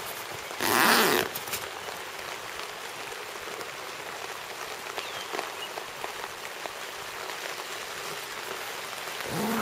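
Steady rain falling on a tent, heard from inside it, with one short burst of louder noise about a second in.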